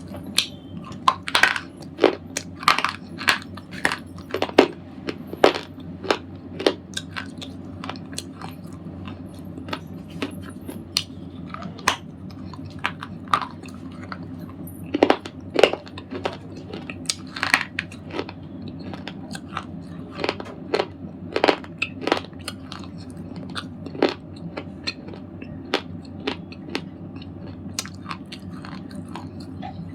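A red slate ball being crunched: irregular sharp cracks and crumbling snaps. They come thickly in the first several seconds and again around the middle, and thin out to scattered small cracks toward the end.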